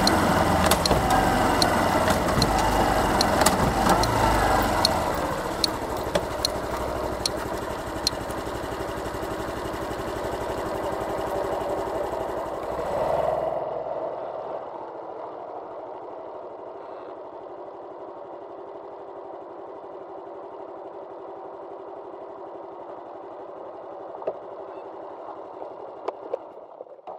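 Honda Cross Cub 110's small single-cylinder four-stroke engine running as the bike rides along, the revs rising and falling for the first few seconds, then steadier. About halfway through it drops to a quieter, muffled steady idle.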